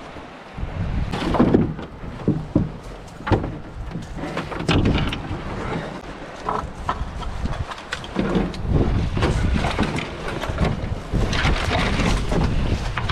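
Wind buffeting the microphone, with irregular knocks, thumps and rustling as a canoe is hauled out and carried overhead over dry brush.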